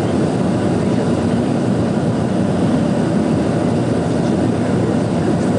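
Avro RJ100 airliner's four turbofan engines and airflow giving a steady, even rumble during the takeoff climb.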